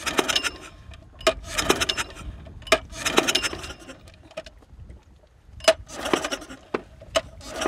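Small outboard motor being pull-started by its recoil cord: about five hard pulls, each a sharp click and a short whirr of the engine cranking, with a longer pause midway. It never catches; the motor has failed and won't start.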